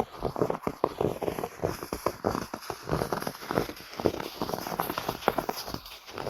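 Footsteps crunching through snow at a walking pace, each step a cluster of short crackly crunches.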